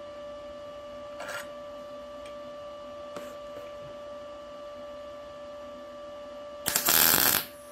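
A short MIG tack weld: a burst of arc noise lasting under a second near the end, tacking a small steel eyelet on, a tack that only barely holds. Before it, a steady hum with a couple of faint clicks.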